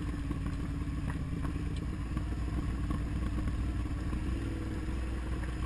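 Motorcycle engine running steadily at low speed on a dirt road, with a few faint rattles from the rough surface.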